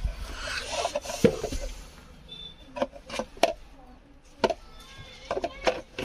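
Irregular knocks and rubbing as a handheld car vacuum cleaner's plastic body and nozzle are handled and pushed against a leather car seat. A cluster of sharp taps comes in the second half.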